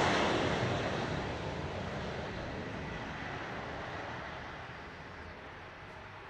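Jet airliner's engine roar fading steadily as the plane climbs away after takeoff.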